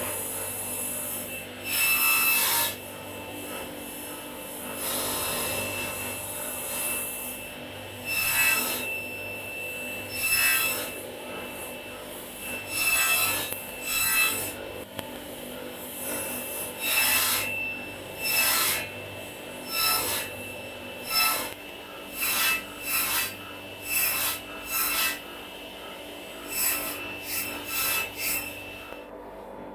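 Repeated strokes of a hand tool rubbing across wood, about twenty of them, irregularly spaced and each about half a second long.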